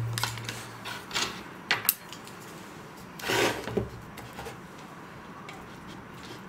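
Spoons, forks and chopsticks clinking and scraping on ceramic plates and bowls as two people start eating: a few scattered clicks, and a longer scrape a little past three seconds in.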